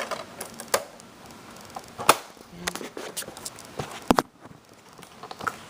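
Hard plastic being handled: a series of irregular sharp clicks and taps with light creaks, the loudest about two seconds in and again near four seconds.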